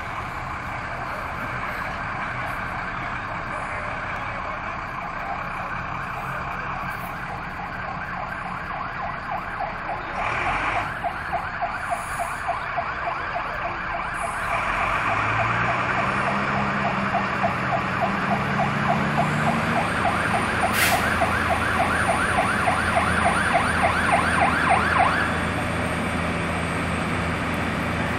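Fire engine siren sounding a fast, regularly pulsing wail that grows louder about a third of the way in, with the truck's engine revving up low underneath it partway through. The siren cuts off suddenly a few seconds before the end.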